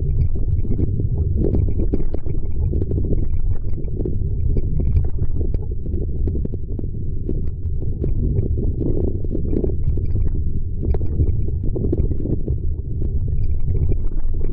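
Gusty wind buffeting the microphone: a heavy, steady low rumble that swells and eases, with faint scattered knocks over it.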